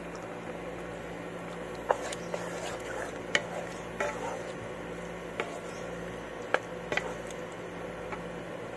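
Wooden spatula stirring beef and mushrooms in a simmering cream sauce in a pan. There is a steady wet cooking hiss, and the spatula knocks sharply against the pan about six times.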